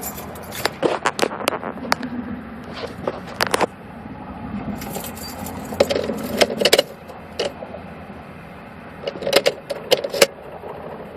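Car keys jangling and clicking at the ignition in three irregular bursts, over a low steady hum.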